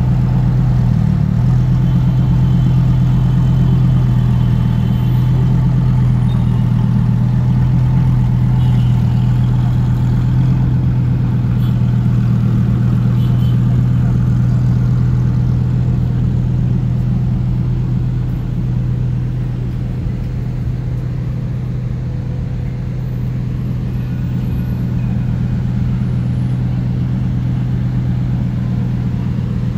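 A steady, loud low engine-like hum, unchanging in pitch, easing a little past the middle.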